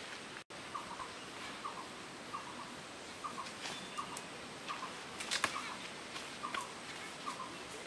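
An animal's short chirping call repeated at a steady pace, about three calls every two seconds. Leaves crackle and rustle from being handled about five seconds in.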